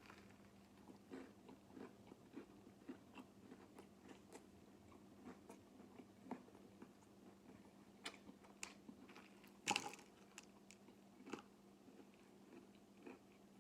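Faint close-up chewing of a crispy Popeyes spicy fried chicken sandwich: soft, irregular crunches and mouth clicks, with one louder crunch a little before ten seconds in.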